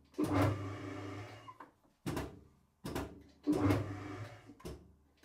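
Lathe motor started and stopped in short jerks, forward and in reverse, about six times: each a clunk, then a brief hum that dies away. The twist drill is jammed fast in the aluminium bronze workpiece and does not free.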